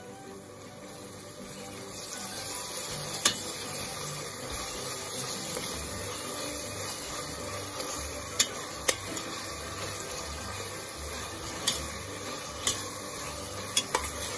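Sliced onions, green chillies, mint and ginger-garlic paste sizzling in oil and ghee in a stainless steel pressure cooker while a steel spoon stirs them. The sizzle grows louder about two seconds in, and the spoon clinks sharply against the pot about seven times.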